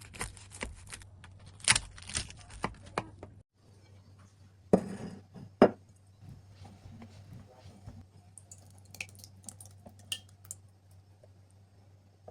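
Kitchen dishes and utensils clinking and knocking as they are handled: a quick run of sharp taps, then a few louder knocks and scattered clinks, over a low steady hum.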